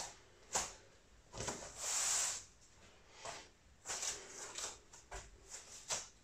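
Scattered soft rustles and breathy hisses, with a few faint knocks, from a person doing forward and backward rolls on the floor. The longest and loudest hiss comes about two seconds in.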